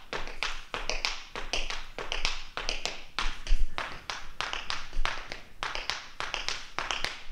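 Tap shoes striking a hard studio floor in a quick, rhythmic run of riffles, each a toe riff and spank back giving three sounds, worked into a cross-and-back pattern with steps and heel drops. One strike about halfway through is heavier than the rest.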